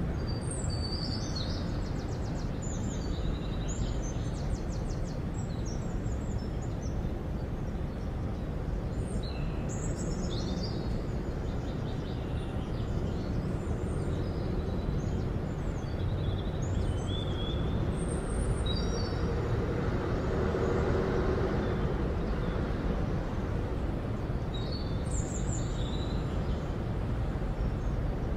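Outdoor town ambience: a steady rumble of distant traffic with small birds chirping on and off. A vehicle passes closer and louder about two-thirds of the way through.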